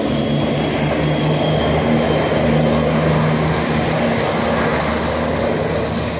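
CrossCountry Class 170 Turbostar diesel multiple unit passing close by: its underfloor diesel engines give a steady low drone over the rumble of wheels on the rails. It is loudest around the middle and eases off near the end as it draws away.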